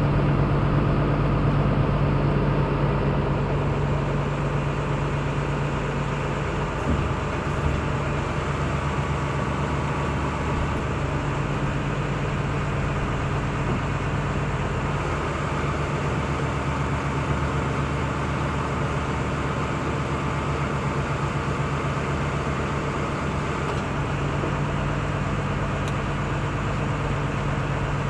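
Machinery running steadily with a constant low hum.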